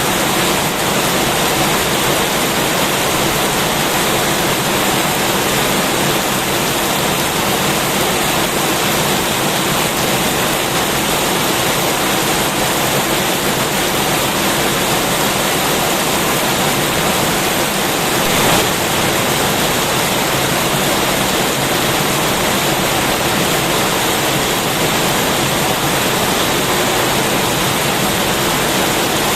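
Heavy rain falling in a steady, dense downpour, with one brief louder swell a little past halfway.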